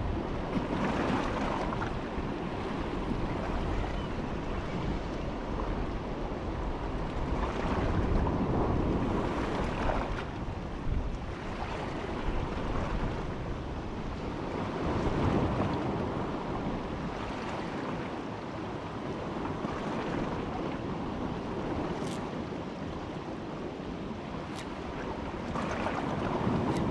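Strong wind buffeting the microphone, rising and falling in gusts every few seconds with a heavy low rumble.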